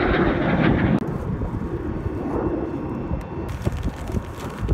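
Fighter jet engine roar, loudest in the first second, then dropping to a lower rumble for the rest.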